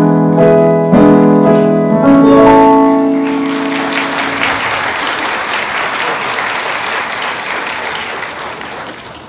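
Youth string orchestra holding its closing chords, which change twice and die away about four seconds in, followed by audience applause that slowly fades toward the end.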